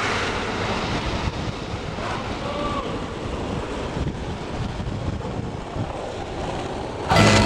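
Skateboard wheels rolling on asphalt, a steady rolling noise with wind on the microphone. Music starts near the end.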